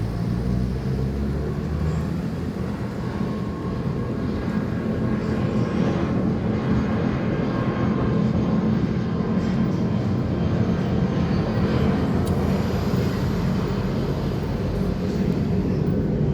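Airliner jet engines running with a steady, even noise that is strongest in the low range, with a faint steady hum.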